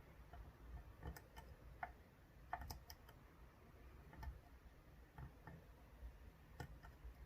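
Faint, irregular small metallic clicks of a dimple lock pick and tension tool working the pins of an Ezcurra DS10 ten-pin dimple euro cylinder, with a small cluster of clicks a little before three seconds in.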